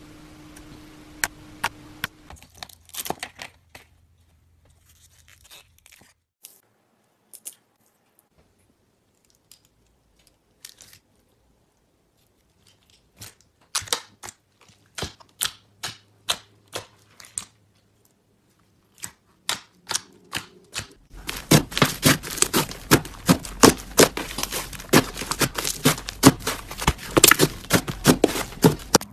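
Slime being poked, pressed and kneaded by hand, making sharp clicks and pops from trapped air. The clicks come singly or in short runs for most of the time, then turn into a near-continuous crackle of pops about seven seconds before the end as a large mass of red slime is kneaded with both hands.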